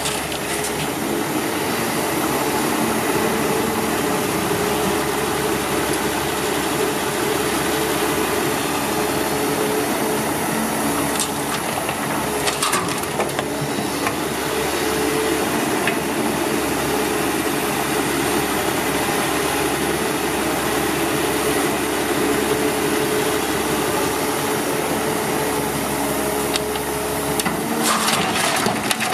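Heavy-vehicle diesel engine running steadily, with a few brief knocks about halfway through and near the end.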